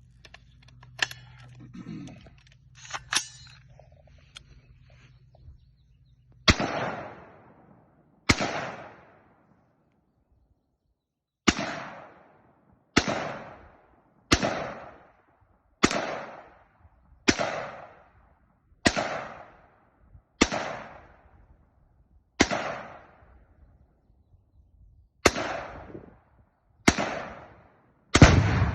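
Diamondback DB15 AR-15 rifle fired in slow single shots, about thirteen of them roughly a second and a half apart, each with a short echo. Near the end one blast is louder, with a deep low boom as an explosive target goes off.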